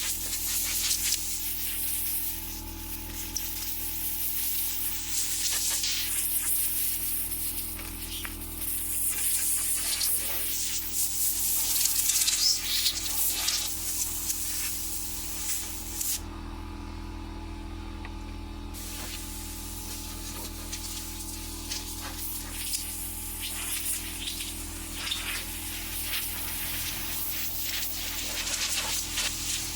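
Hissing spray jet, in uneven gusts, over a steady low hum; the spray stops for a few seconds just past the middle and then starts again. It is likely the spray-down that cleans sawdust off the table saw.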